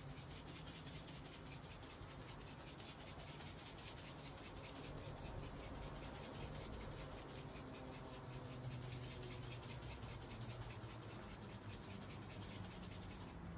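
Faint, continuous scratchy rattle of a glass spice jar being shaken, dry seasoning sprinkling onto raw pork strips in a stainless steel bowl.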